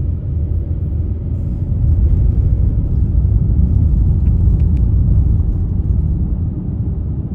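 Low, steady rumble of a car's engine and tyres heard from inside the moving car, growing louder about two seconds in.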